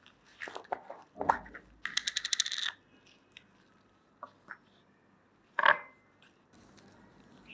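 Small plastic jar of polishing paste being opened by gloved hands: a few scattered knocks, then a rapid run of clicks about two seconds in as the screw lid is twisted off, and a single sharp clack of plastic on the granite counter past the middle.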